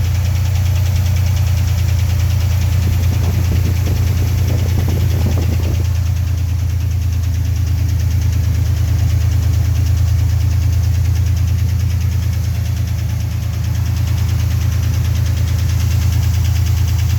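1990 Chevrolet Cheyenne's 4.3-litre V6 engine idling steadily with a fast, evenly repeating knock.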